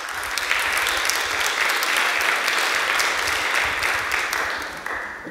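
Audience applauding at the end of a poem reading: a dense patter of many hands clapping that fades away near the end.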